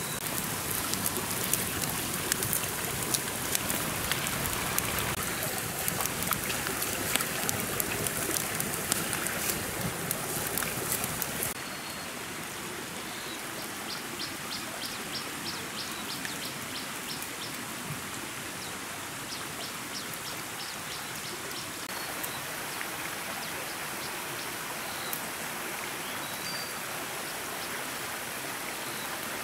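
A small stream running steadily, with a wood fire crackling over it for about the first eleven seconds. After that the stream is quieter, with a few high bird chirps.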